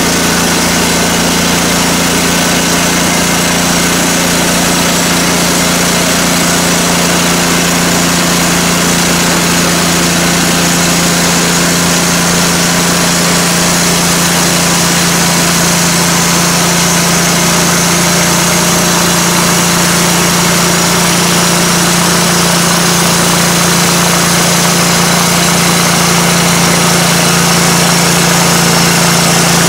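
TimberKing 1600 portable band sawmill running steadily under load as its band blade cuts through an oak log, the engine's hum with a constant hiss of sawing over it. It grows slightly louder near the end.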